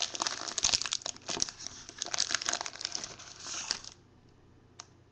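Foil trading-card pack wrapper being torn open and crinkled by hand, a dense crackling that stops about four seconds in. A single faint click follows near the end.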